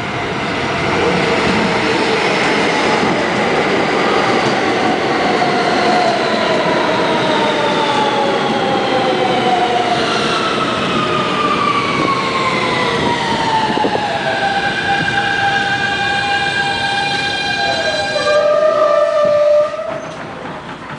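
Siemens-propulsion R160B subway train braking to a stop over wheel and rail noise. Several whining tones from the propulsion fall steadily in pitch, then settle into steady tones. They cut off suddenly near the end as the train stops.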